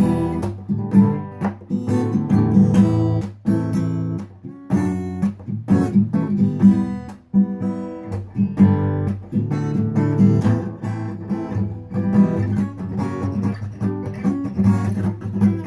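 Acoustic guitar strummed in a steady rhythm, playing a song's instrumental introduction with no singing.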